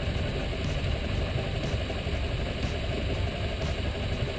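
Boat engine idling steadily at low trolling speed, a continuous low running sound.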